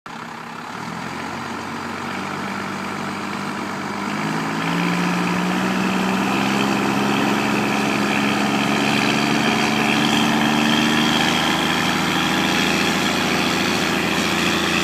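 Lifted Dodge Ram 250 pickup's engine working under load as it pulls a stuck pickup on a tow strap. Its pitch steps up about four seconds in and then climbs slowly as it gets louder.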